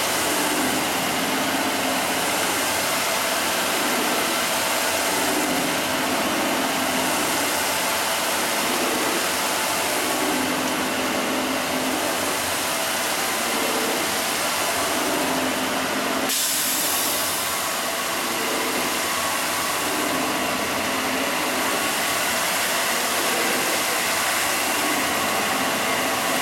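Nine-head stone polishing machine running: spindle motors whining steadily and abrasive pads grinding wet over a stone slab, with a swell in the grinding every five seconds or so.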